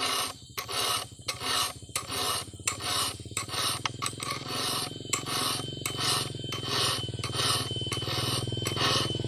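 Round chainsaw file rasping across the cutters of a Stihl 070 chainsaw chain in quick, regular strokes, about two a second: the chain being sharpened by hand.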